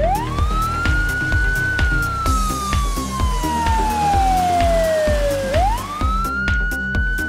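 Police siren sound effect wailing: a quick rise, then a long slow fall, rising again about five and a half seconds in, over background music with a steady beat.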